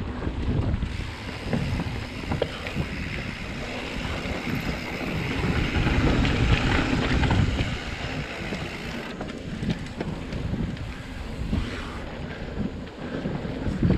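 Mountain bike ridden fast down a dirt singletrack: wind buffeting the microphone over tyre noise and the bike rattling and knocking over roots and rocks, louder for a stretch about halfway through.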